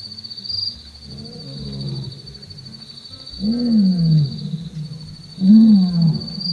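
A wild animal's low calls, three of them, each rising then falling in pitch, the last two the loudest, over a steady high insect-like trill.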